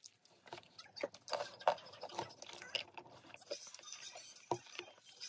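Eating sounds: a wooden utensil clicking and scraping against a clear plastic salad bowl, mixed with crunchy chewing of a salad topped with seeds. The clicks come irregularly, several a second.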